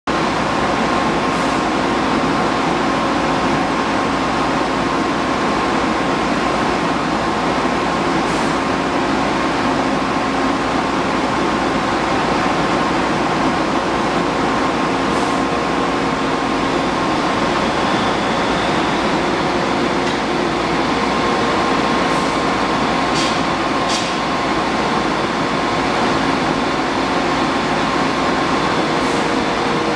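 Offshore drill-floor machinery running steadily and loudly, a constant hum with a steady whine on top, with a few faint ticks now and then.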